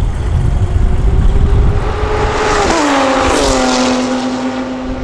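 A car passing at high speed down a racetrack straight: a rushing noise swells, and the engine note drops sharply in pitch as it goes by, about two and a half seconds in, then holds lower as it moves away.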